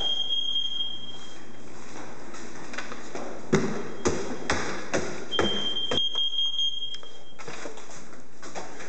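Smoke alarm sounding a steady high-pitched tone twice, each about a second and a half long, some five seconds apart. Between them comes a run of sharp knocks and thuds, footsteps climbing wooden steps, the first knock the loudest.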